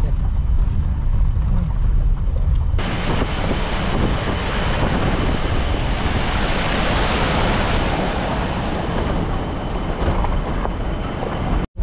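Off-road jeep running with a low engine and road rumble. About three seconds in, a loud, steady rushing hiss sets in abruptly and continues, breaking off for a moment near the end.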